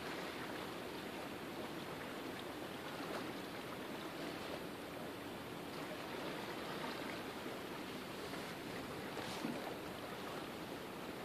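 Calm sea water lapping against a concrete breakwater wall: a steady wash of small waves, with a slightly louder splash about three seconds in and another near the end.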